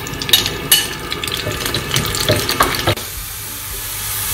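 Chopped shallots scraped with a spoon from a bowl into hot ghee in a small frying pan, with sharp clicks and taps. About three seconds in, this gives way to a steady sizzle of the shallots frying in the ghee.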